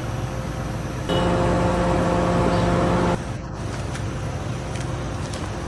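A car running with a steady low hum. It gets louder about a second in and drops back a little past halfway.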